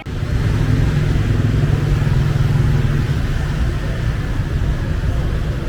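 Steady, loud low rumble of motor vehicle traffic, cutting in suddenly at the start.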